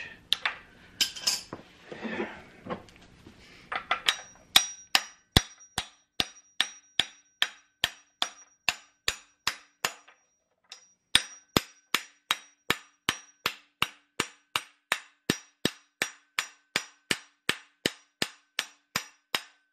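Hammer lightly tapping a large deep socket again and again, about two and a half strikes a second, driving a heated timing sprocket onto the crankshaft snout; the socket rings faintly between strikes, and there is a brief pause about ten seconds in. Before the tapping, metal parts clink for a few seconds as the sprocket and socket are set in place.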